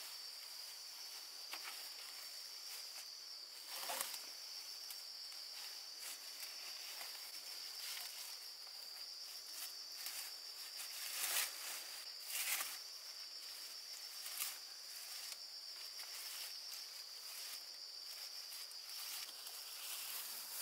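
Steady high-pitched insect chirring, with a handful of short knocks or rustles over it, the loudest two a little past the middle.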